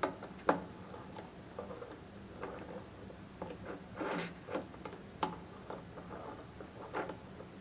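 Irregular light metallic clicks and ticks as a T-handle hex key turns clamping bolts into a steel Modbore blade set, running them in until lightly snugged.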